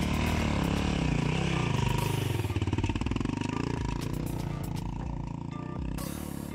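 Dirt bike engine running and revving, the revs rising and falling.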